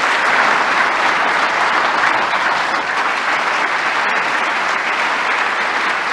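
Large audience applauding, with dense, steady clapping.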